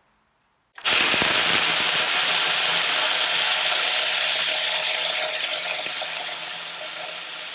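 Two countertop blenders, a VAVA and a Ninja, running at once on low and grinding dry popcorn kernels into cornmeal: a loud grinding clatter of hard kernels in the jars that starts suddenly about a second in and slowly eases in level.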